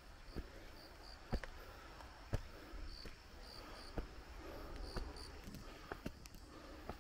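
Footsteps climbing stone steps, a sharp step about once a second, with short high insect chirps in the background.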